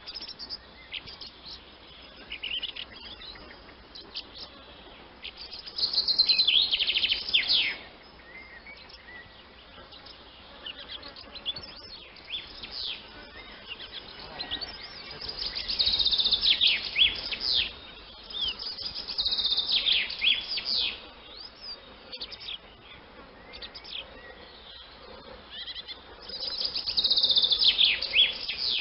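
Swallows twittering: fast strings of high, sharp, falling chirps that come in bursts of a couple of seconds, with scattered single chirps between them.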